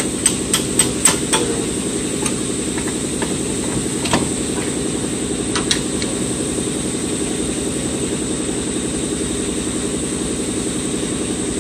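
Air compressor running with a steady, evenly pulsing drone. Over it come a quick run of five sharp metal clicks near the start and two more clinks a few seconds later, from tools and parts being handled at the front wheel hub.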